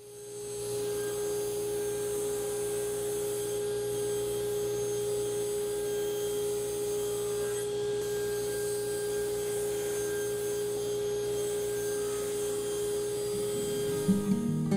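Woodworking power tool running steadily, with a constant whine at one pitch over an even hiss, rising in over the first second.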